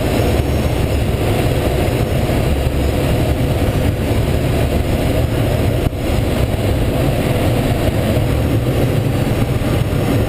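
Steady rushing airflow noise in the cockpit of a Schweizer SGS 2-33A glider in flight, heaviest in the low end, with a brief dip about six seconds in.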